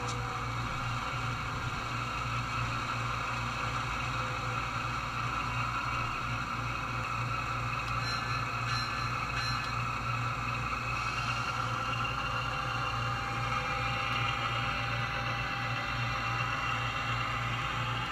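HO scale model locomotive running slowly along the track: a steady mechanical drone with a low hum and a few held tones that drift a little in pitch.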